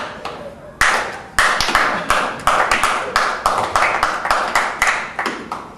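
A few people clapping by hand: uneven separate claps, sparse at first, then several a second from about a second and a half in, thinning out near the end.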